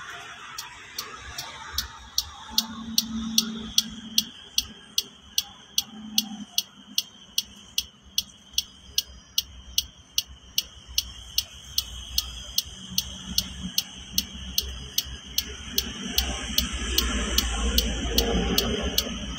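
Sharp, evenly spaced metallic ticking, about two and a half a second, from the Isuzu Traga's diesel engine, over a faint engine running sound that grows louder near the end. It is the knocking symptom being diagnosed.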